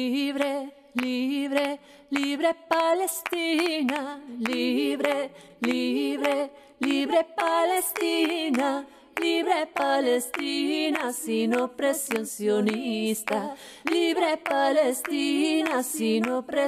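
A woman singing solo and unaccompanied, a melody in short phrases with brief pauses between them.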